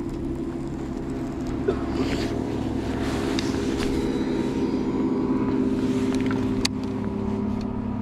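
A bow-mounted electric trolling motor runs with a steady hum. There is a single sharp click near the end.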